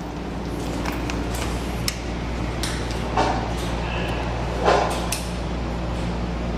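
Levers of a US&S Model 14 interlocking machine being thrown to clear signals: a series of short metallic clicks and clunks, the two loudest about three and five seconds in, over a steady low hum.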